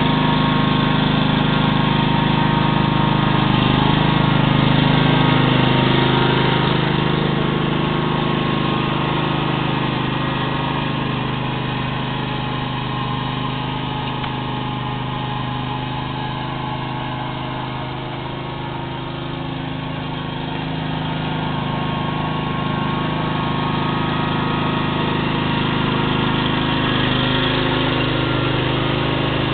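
Toro Tru-Trak commercial walk-behind mower's engine running steadily as the mower drives across the lawn, growing fainter a little past the middle and louder again near the end as it moves away and comes back.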